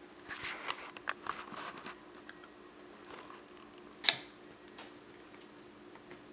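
Child's small fork scraping and tapping on a plastic plate while picking up food: a cluster of light clicks and scrapes in the first two seconds, then one sharp tap about four seconds in, over a faint steady hum.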